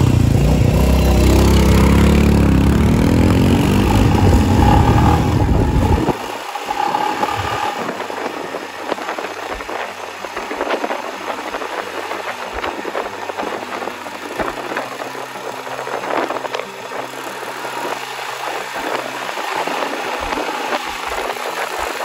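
Royal Enfield Himalayan's single-cylinder engine runs loudly, its pitch rising and falling as the bike pulls away. About six seconds in the deep rumble drops off suddenly, leaving a quieter steady engine hum under wind rushing over the microphone as the bike rides along.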